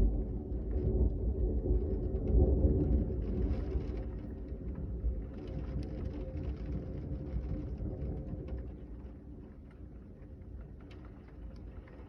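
Thunder rumbling deep and loud, swelling about two seconds in, then rolling away and fading over the following seconds, with rain falling.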